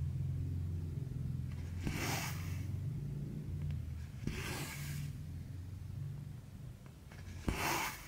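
Cotton embroidery thread drawn through cross-stitch fabric three times, about two and a half seconds apart, each pull a short rasping swish with a small click as the needle goes through. A low steady hum runs underneath.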